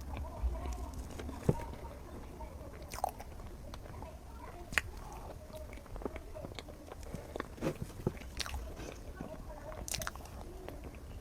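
Close-up eating sounds: chewing and biting a soft chocolate mille crêpe cake, with irregular wet mouth clicks and smacks.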